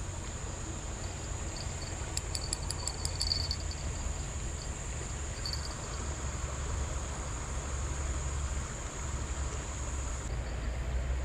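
Steady high insect drone from crickets over a low, even rush of background noise, with a short run of quick ticks about two seconds in.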